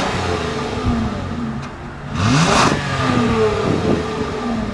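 2013 Toyota Avalon engine and exhaust being revved: the revs fall away at the start, climb sharply about two seconds in, then drop back and settle toward idle.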